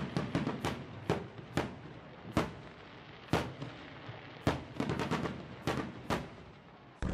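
Aerial fireworks shells bursting: about fifteen sharp bangs at uneven intervals, some coming in quick clusters, with a low rumble between them.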